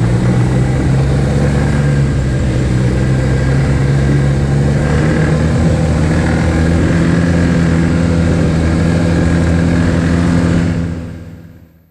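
Snowmobile engine running steadily at speed, heard from the rider's seat. It fades out about eleven seconds in.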